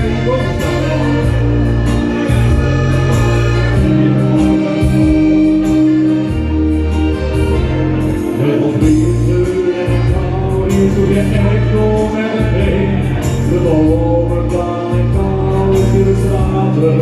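Instrumental intro of a Dutch-language pop song played loud through a PA, with a pulsing bass line and held chords.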